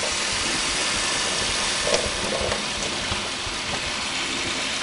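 Water tap running in a steady hissing stream, filling a homemade plastic-bottle chicken waterer, with a light knock about two seconds in.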